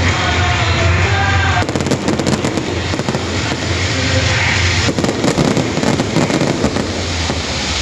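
Fireworks going off in a dense, continuous barrage of overlapping bangs and crackles, with music playing underneath.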